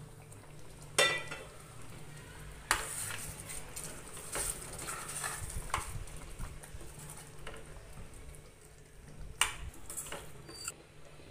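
A spoon stirring thin prawn masala gravy in a stainless steel pot, scraping and clinking against the metal sides. The loudest clinks come about a second in, near three seconds, and twice near the end.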